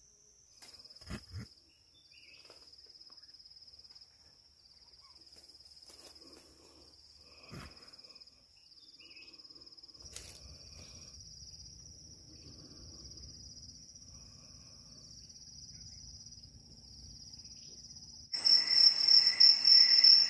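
Insects trilling in a steady high-pitched drone that steps slightly in pitch every second or two, with a couple of faint knocks. Near the end a much louder, pulsing sound cuts in.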